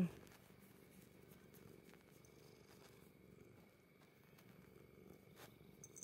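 Ginger tabby cat purring faintly and steadily as its chin and cheeks are scratched.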